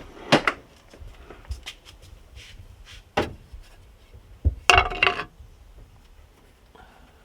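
A few separate knocks and clunks of wood and metal, with a louder cluster about five seconds in that rings briefly.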